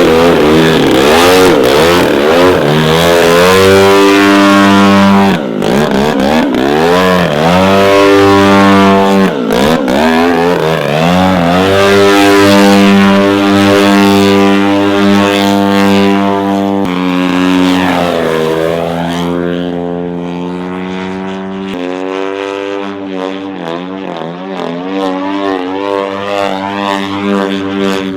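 Propeller-driven radio-control model aeroplane flying overhead, its engine droning steadily while the sound sweeps and shifts as it passes and manoeuvres. It grows somewhat quieter in the last third.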